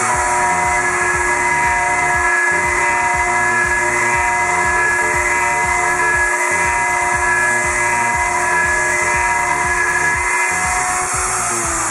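CNC router spindle running at a steady high-pitched whine while a thread mill cuts into solid aluminium, with rough cutting noise under the whine. Near the end the whine falls in pitch as the spindle slows.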